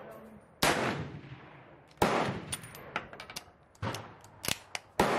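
Krag–Jørgensen bolt-action rifle firing: two sharp reports with a trailing echo, a little over a second apart, then a quick run of metallic clicks and clacks as the bolt is worked to eject and chamber a round, and more sharp cracks near the end.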